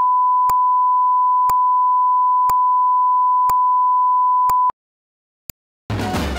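A steady test tone held on one pitch, with a sharp click once a second: a line-up tone with timing pips at a break in the recording. The tone cuts off suddenly about three-quarters of the way through, a last click follows in silence, and music starts just before the end.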